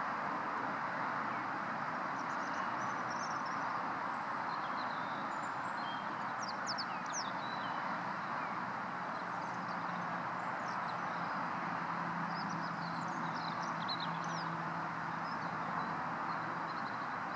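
Steady rushing background noise with faint high chirps and twitters of small birds scattered through it. A low steady hum comes in about halfway through and fades near the end.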